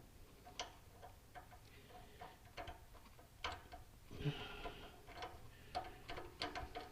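Faint, irregular metallic clicks and ticks of a hand wrench turning a stuck threaded fitting in an exhaust manifold, some with a short ring.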